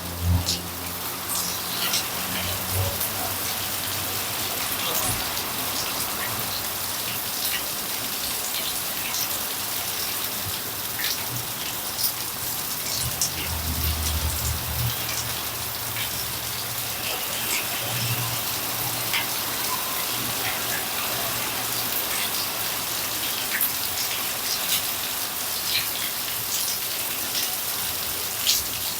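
Heavy rain falling steadily, with the sharp ticks of single drops hitting hard surfaces. A faint low rumble comes and goes in the background.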